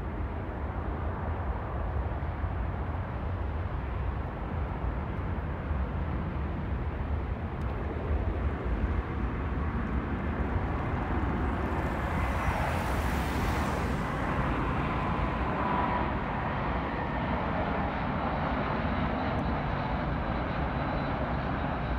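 Jet airliners on final approach, a steady jet engine rumble. About halfway through, a hiss swells briefly as one passes closest. Near the end a thin engine whine comes in.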